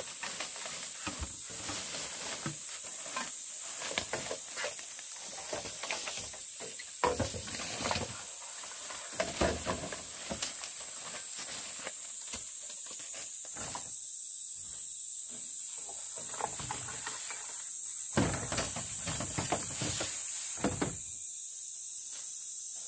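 A steady high-pitched insect drone, with scattered rustling and a few knocks, the loudest about seven seconds in and again about eighteen to twenty seconds in.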